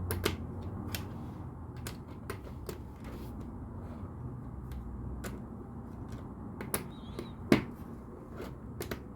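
LEGO pieces clicking and clattering as they are handled and pressed together, in irregular sharp clicks, with one louder snap about three quarters of the way through.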